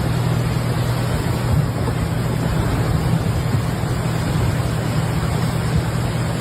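Rushing floodwater, a steady loud roar with no breaks.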